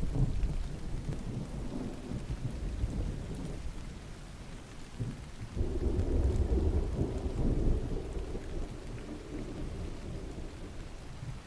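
Steady rain with thunder: a low rumble dies away over the first few seconds, then a new roll of thunder breaks in suddenly about halfway through and slowly fades under the rain.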